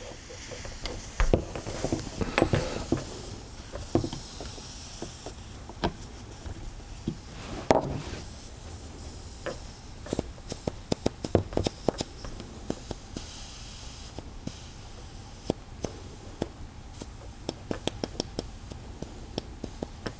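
Faint hiss of residual compressed air bleeding out of an FX Wildcat MkI PCP air rifle through its loosened brass bleed plug: the last air in front of the regulator slowly escaping. The hiss fades and returns, with scattered clicks and knocks as the hex driver and rifle are handled.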